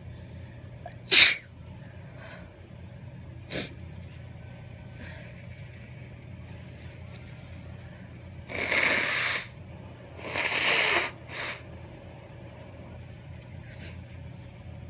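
A woman's allergy sneezes: one sharp, loud sneeze about a second in, then a small stifled one a couple of seconds later. After that come two long nose blows of about a second each and a short third one, over a steady low hum.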